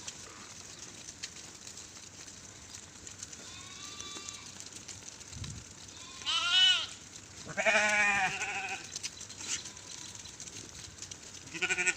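Sheep bleating: a faint call, then two loud wavering bleats in quick succession, the second longer, and a short one at the end.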